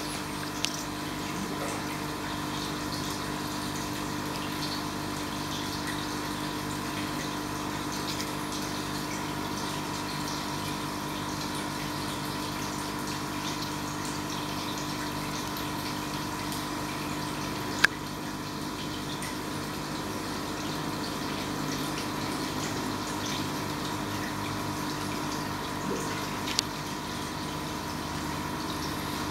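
Aquarium filter pump running with a steady hum and circulating water trickling. A few sharp clicks stand out: one about a second in, one midway and one near the end.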